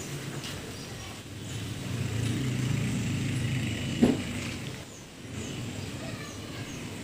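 A motor vehicle going past, its noise swelling over a couple of seconds and then fading, with a single short knock about four seconds in.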